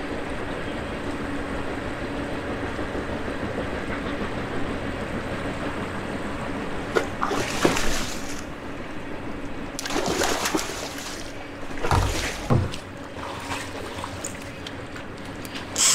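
Water splashing and sloshing in several short bursts as a hooked steelhead thrashes at the landing net beside the boat, over a steady low motor hum.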